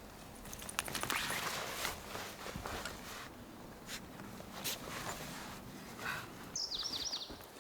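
Scattered rustles and light knocks, like footsteps moving through forest ground, with a bird's quick series of descending chirps near the end.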